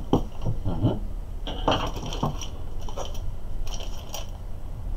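Packaging handling: irregular clicks, knocks and crinkling as small hand tools are set down and the plastic wrap and styrofoam tray of a 3D printer kit's box are rustled.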